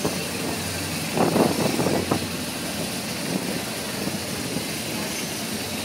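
Car engine running at low speed with a steady hum and road noise. A brief cluster of louder sounds comes about a second in.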